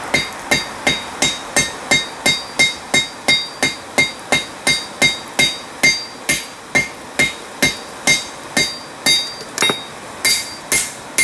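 Hand hammer striking three-inch steel flat stock on a Peter Wright anvil, bending it into a curve: a steady run of blows about three a second, each with a bright ringing note. Near the end the blows pause briefly, then a few sharper strikes follow without the ring.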